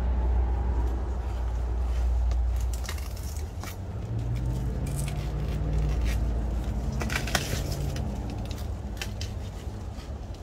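Mint plants being handled and cut: scattered short crackles and snaps of stems and leaves over a steady low rumble, with a faint low hum in the middle.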